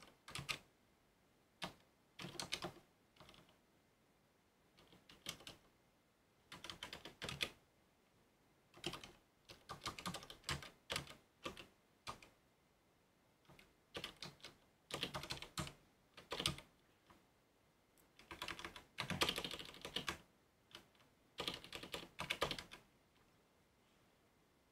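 Typing on a computer keyboard: irregular bursts of key clicks separated by short pauses, as code is entered.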